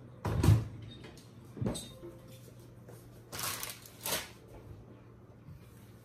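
Kitchen handling sounds: a heavy thump about half a second in and a lighter knock a second later, then two brief rustling scrapes around three and a half and four seconds.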